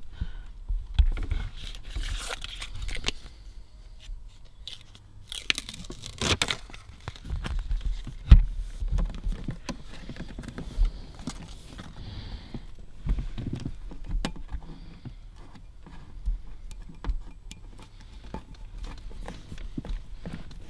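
Dynamat sound-deadening sheets being handled and fitted: irregular crinkling and tearing, with scattered knocks and a sharp knock about eight seconds in.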